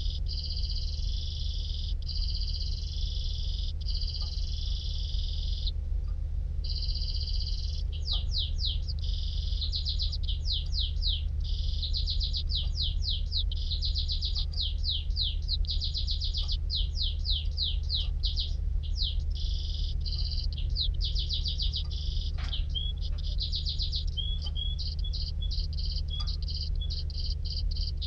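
Domestic canary singing a long, continuous song of fast rolling trills and rapid repeated sweeping notes, with a short break about six seconds in. A steady low hum runs underneath.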